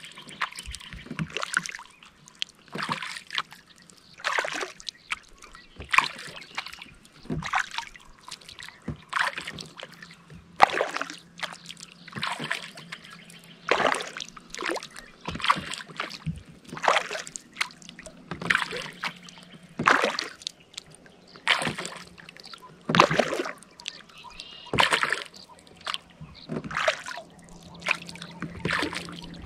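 Kayak paddle strokes: the blades dip and pull through calm lake water in an even rhythm, one splashing stroke about every one and a half seconds.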